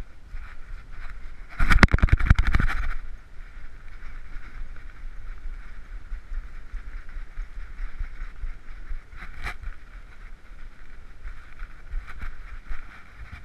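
Handling noise from a GoPro Hero3 strapped to a walking dog's head: low rumbling and rubbing of the head-strap mount over a steady faint high-pitched noise. About two seconds in there is a loud burst of rapid rattling knocks lasting about a second, and a single sharp knock comes later.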